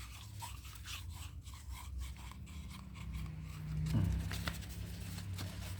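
Hands handling a portable thermal printer, making scattered small clicks, taps and rubbing, with a louder knock about four seconds in.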